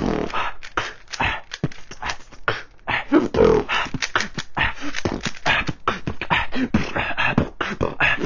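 A person beatboxing: a fast, dense run of percussive mouth sounds, kick- and snare-like pops and hisses, with a short hummed note about three seconds in.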